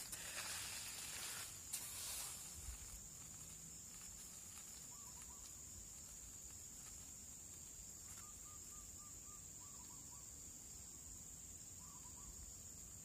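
Steady high-pitched insect drone in the background, with a few short runs of quick, soft chirps now and then. Some rustling in the first couple of seconds.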